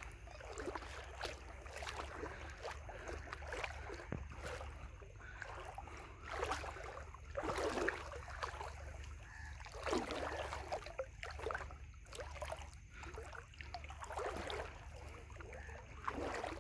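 Water splashing and lapping against a small boat's hull as it moves along, in irregular surges every second or two over a steady low rumble.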